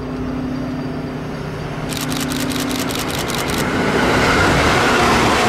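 A vehicle running with a steady hum, a rapid run of sharp high clicks about two seconds in, then growing louder over the last second and a half.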